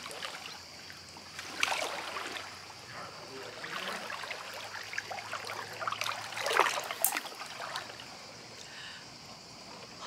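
Pool water sloshing and splashing as a person wades through shallow water, in a few louder surges about two seconds in, around four seconds and again around six to seven seconds, over a steady trickling of water.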